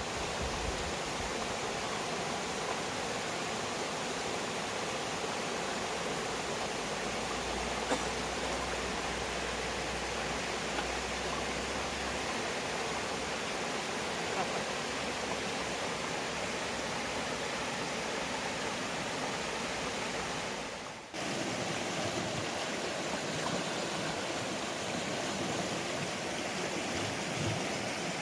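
Mountain stream water rushing steadily, a continuous hiss of flowing water. It drops out for a moment about 21 seconds in and then resumes.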